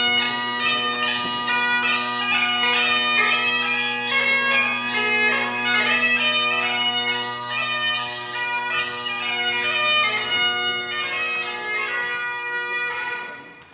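Bagpipes playing a tune over steady, unbroken drones, cutting off shortly before the end.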